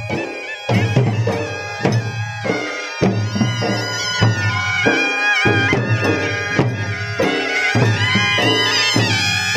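Traditional procession music: a wind instrument playing a wavering, reedy melody over a steady beat of large drums.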